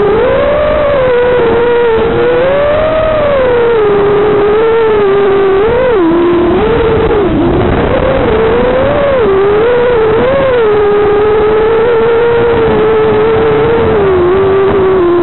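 Small FPV racing quadcopter's brushless motors and propellers whining in flight, the pitch rising and falling over and over as the throttle changes.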